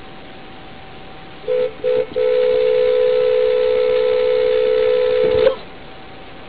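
Car horn: two short honks about a second and a half in, then one long held blast of about three seconds that cuts off suddenly, over a steady hiss of road noise.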